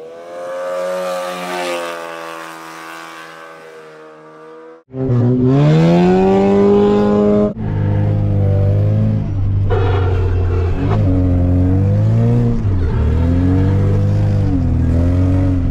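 Classic VAZ Zhiguli four-cylinder engine revving hard while the car drifts on snow. For the first few seconds the engine is heard from outside as the car slides away and fades. After abrupt changes about five and seven seconds in, it is loud and close, with the revs rising and falling as the throttle is worked through the slide.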